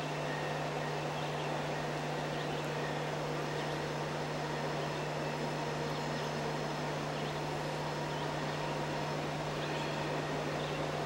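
Steady outdoor background: a constant low hum under an even hiss, with faint short bird chirps every second or two.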